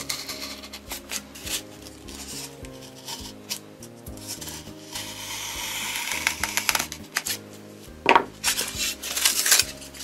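X-Acto hobby knife scoring a green foam block: repeated scratchy scraping strokes of the blade through the foam. About eight seconds in come louder sharp snaps and scrapes as the scored piece is worked free.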